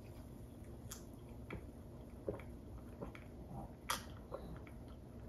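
Quiet gulping and swallowing as carbonated soda is drunk from a mug, with a few soft clicks; the sharpest comes about four seconds in.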